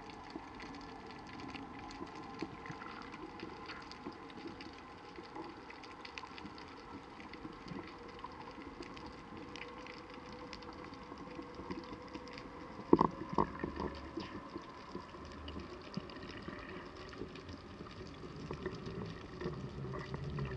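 Underwater ambience heard through a waterproof camera housing: a steady faint crackle of many small clicks, with a short cluster of louder knocks about thirteen seconds in.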